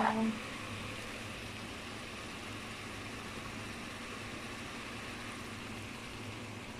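Chicken and vegetables sizzling in an aluminium pot: a steady, even hiss with a faint low hum underneath.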